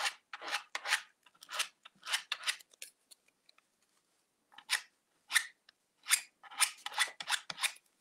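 A small spreader scraping paint through a fine mesh stencil in short, repeated strokes, with a pause of about two seconds partway through. The scraping is the sign that the paint is going through the mesh.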